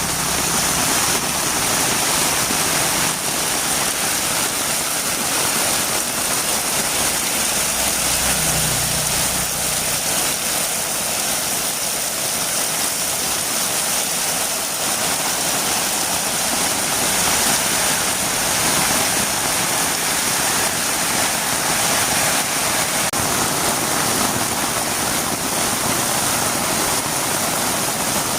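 Heavy rain falling steadily, an even hiss. A brief low rumble comes in about seven seconds in and fades out about three seconds later.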